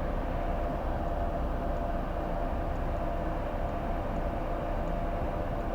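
Steady in-flight cockpit noise of a Bombardier Challenger 350 business jet: an even rush with a faint steady hum.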